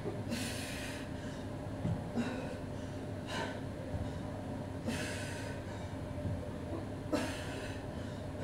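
A woman's sharp, forceful breaths out, about five over eight seconds, one with each sit-up rep as she works hard, over a faint steady hum.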